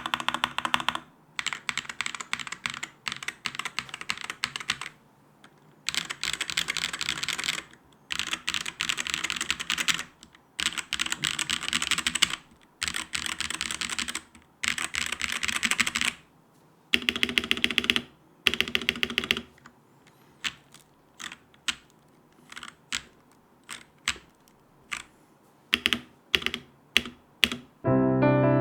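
Langtu LT84 tenkeyless mechanical keyboard with its stock switches being typed on: quick bursts of rapid keystrokes lasting a second or two with short pauses between them, then single keys pressed one at a time about twice a second in the last third. Piano music comes in at the very end.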